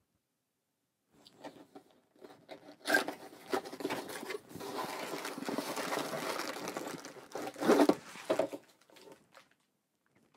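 A cardboard toy box being opened by hand: a few taps and a tearing of the flap, then a long stretch of plastic crinkling and rubbing against cardboard as a gallon-sized zip-top bag is pulled out of the box.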